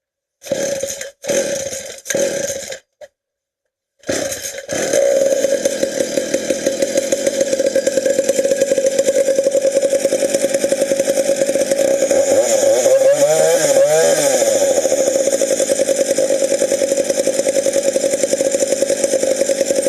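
Cold McCulloch Wildcat two-stroke chainsaw being started: it fires in three short bursts, then about four seconds in catches and runs steadily. Its revs rise and fall briefly near the middle.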